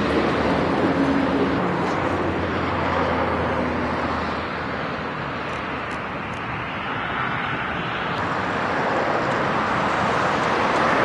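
Eurocopter EC145 helicopter in flight at a distance: a steady rushing drone of rotor and turbines that dips a little halfway through and grows louder again near the end.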